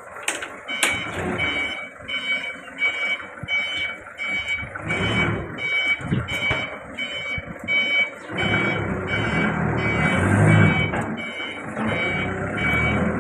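Electronic warning beeper sounding a steady beep about twice a second, over mechanical clatter; a heavier low rumble joins about eight seconds in.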